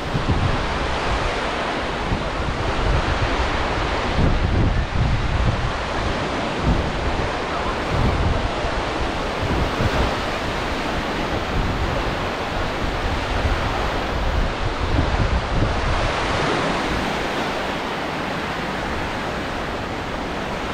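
Sea waves washing onto the beach in a steady rush that swells and eases every few seconds, with wind gusting across the microphone in a low rumble.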